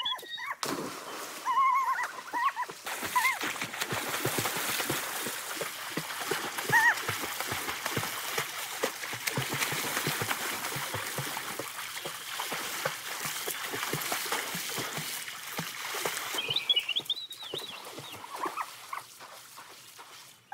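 Water splashing and churning as a man swims through a muddy pool, a dense rushing wash that eases off about sixteen seconds in. A few short high squeals come over it, twice in the first few seconds and once more near the end.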